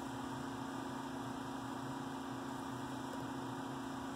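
Steady electric fan hum behind a filter grille: a constant low drone with even hiss.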